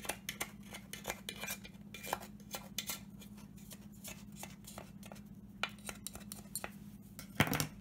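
Knife blade scraping and clicking against the side of a metal cake pan as it is worked around the edge to loosen a cake that is sticking to the pan, with one louder clatter near the end.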